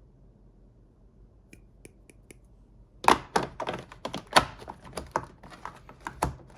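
Small metal pliers being handled: a few faint ticks, then from about halfway a rapid, irregular run of sharp clicks and clacks as the tools are picked up and knock together.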